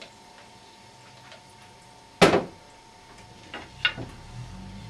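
A single sharp knock of something hard set down or struck, about two seconds in, followed by two lighter clicks about a second and a half later.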